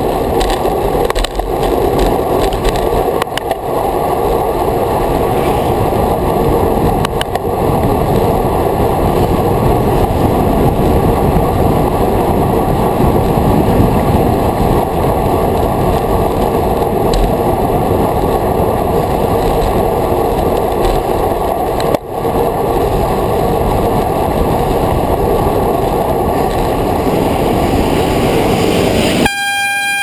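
Wind rushing over a bicycle-mounted camera's microphone while riding, a loud steady rumble with a few knocks from road bumps early on. Just before the sound cuts off, a short pitched tone sounds as a minibus draws alongside.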